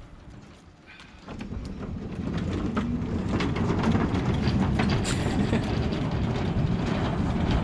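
Wheeled tool trolley rolling over wooden pontoon decking: a rumble with quick clacks as the wheels cross the boards, starting about a second in and growing louder.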